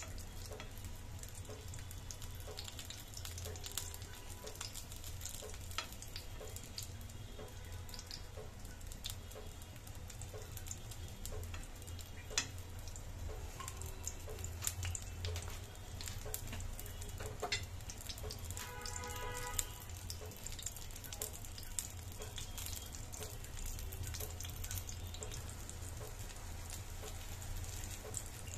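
Eggplant slices shallow-frying in mustard oil in a pan: a steady sizzle with scattered pops and crackles.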